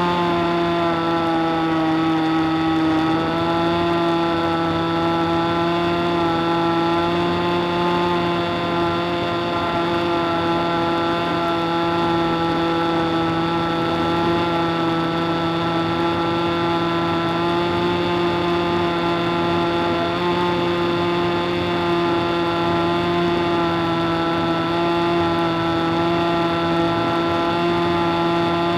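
Model airplane engine heard from on board in flight, running at a steady speed with one slight dip in pitch a few seconds in. It holds one speed because the throttle is not responding.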